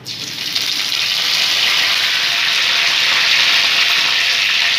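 Curry leaves sizzling in hot mustard oil in a kadhai, the first step of a tempering (tadka). The sizzle starts suddenly as the leaves hit the oil and builds to a loud, steady hiss within about a second.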